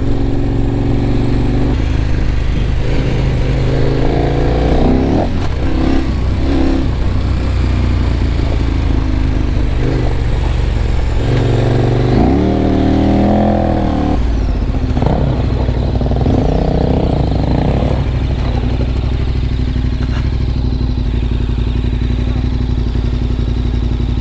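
KTM 1190 Adventure R's V-twin engine running on the move, its note rising and falling several times as the rider accelerates and shifts gears.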